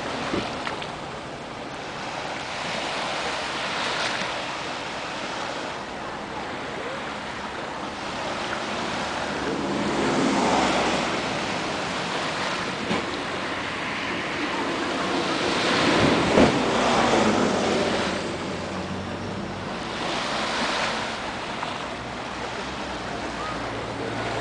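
Small waves breaking gently and washing up a sandy beach on a calm sea, the surf swelling and fading every five or six seconds.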